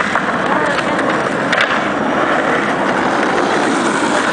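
Skateboard wheels rolling steadily over pavement, with a few faint clicks.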